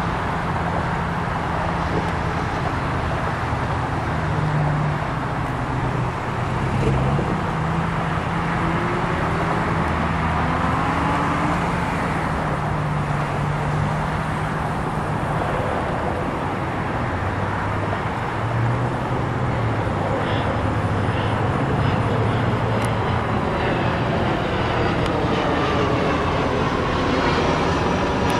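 Heavy diesel engines running steadily: a low drone whose pitch steps up and down, with faint gliding whines in between.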